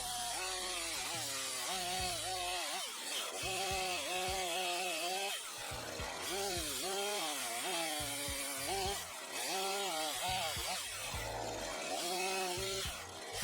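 Makita DCS5121 50 cc two-stroke chainsaw cutting wood. The engine pitch sags under load and climbs back again and again.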